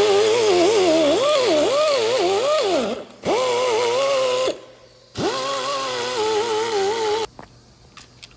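Pneumatic die grinder spinning a Roloc-style abrasive disc against a wheel hub face to clean off corrosion. It gives a whine with a hiss of air, the pitch dipping and rising as the disc is pressed on and eased off. It runs in three spells, with short stops about three seconds in and again at about four and a half seconds, before shutting off after about seven seconds.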